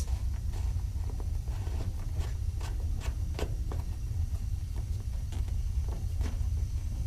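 Scattered small clicks and knocks of hands working on fittings, most likely a garden hose being unscrewed from a water heater's drain valve, over a steady low rumble.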